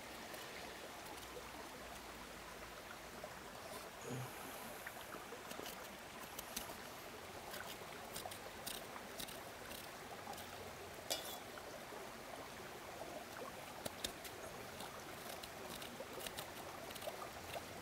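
Steady rush of a nearby stream, with scattered light scrapes and taps of a knife scraping coconut fat out of the shell.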